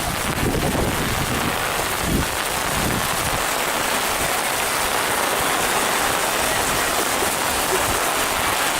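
Heavy rain falling steadily, an even hiss of rain on the ground and surfaces.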